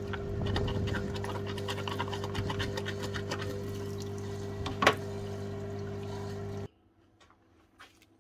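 Parts-washer pump humming steadily while solvent pours from its nozzle over metal hammer parts being scrubbed with a brush, with scattered small clicks and scrapes and one sharper knock. It cuts off suddenly about two-thirds of the way through.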